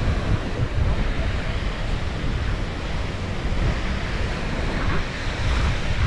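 Wind buffeting the camera microphone in a low, fluctuating rumble, over a steady wash of small waves breaking on a sandy beach.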